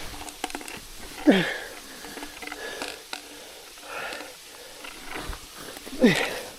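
A climber groaning with effort twice, each groan falling in pitch, about a second in and again near the end, with breaths between them. Scattered clicks and scrapes of hands and boots moving on rock and vegetation run underneath.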